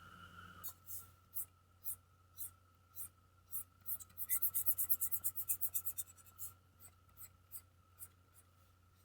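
Drawing strokes scratching across paper, at about two a second at first, then a fast run of short hatching strokes in the middle, easing off to a few scattered strokes near the end.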